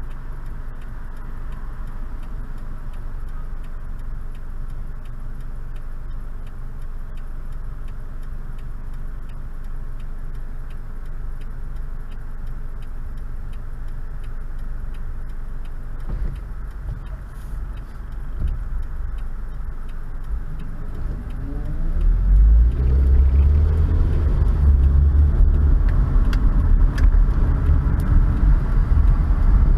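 Car heard from inside the cabin: a low, steady engine and cabin rumble while waiting in traffic, with a light regular ticking underneath. About 22 seconds in, the car pulls away and the engine and road noise grow much louder, the engine note climbing as it accelerates.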